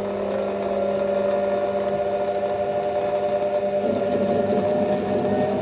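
Metal lathe running steadily with a motor whine of several steady tones; about four seconds in a rougher scraping hiss joins as the cutting tool starts working into the metal workpiece.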